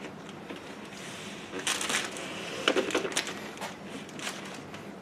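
Rubber rear-window gasket being stretched and worked onto the edge of the glass by hand: faint, irregular rubbing and rustling, with a few short clicks and scrapes after a brief rustle about two seconds in.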